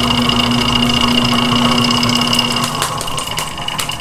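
Electric motor of an SW Speedwinder AL-130 line winder running steadily with a fixed-pitch hum, spinning a bulk spool of monofilament line. It stops about two and a half seconds in, and a few sharp clicks follow near the end.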